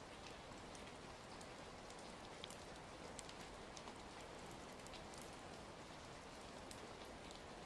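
Faint, steady rain hiss with scattered sharp crackles, from an ambient rain-and-fireplace recording.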